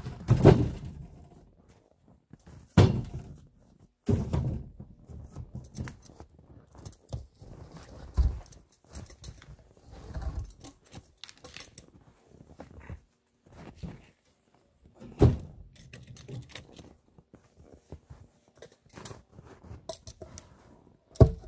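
Birch firewood logs thudding down one at a time onto a metal-framed log sled, several separate knocks, with rustling and shuffling in the snow between them.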